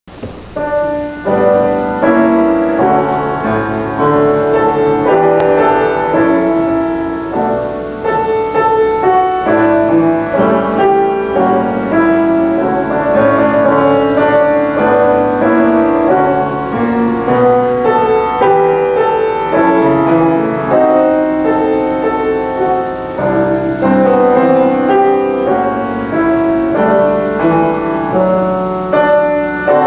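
Solo piano music playing a slow classical-style prelude, many notes sounding together in a flowing line.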